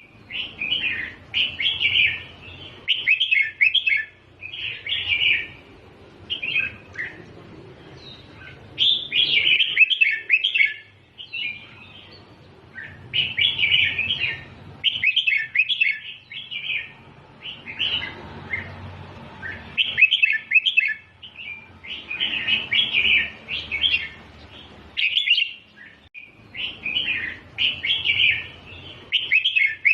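Red-whiskered bulbul singing: short bright phrases repeated one after another with brief pauses between them.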